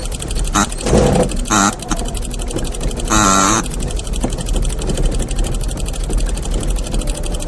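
Cartoon-style old jalopy sound effect: a rattly car engine chugging, with short pitched squeaks about a second in and a longer horn honk around three seconds in.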